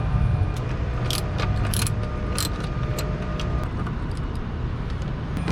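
Scattered sharp metallic clicks and clinks of a hand wrench and socket working small 8 mm bolts loose, several in the first few seconds, over a steady low hum.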